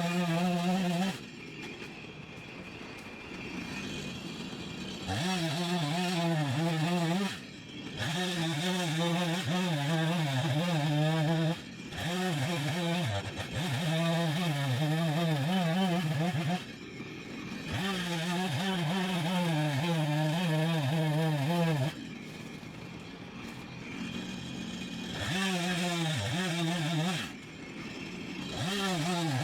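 Two-stroke chainsaw run at high throttle in repeated bursts of two to four seconds, its pitch wavering under load, dropping back to a lower, quieter running between bursts.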